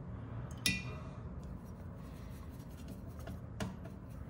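Watercolor painting tools being handled: a sharp clink with a brief ring about half a second in, a second tap near the end, and faint brush rubbing between them, over a low steady hum.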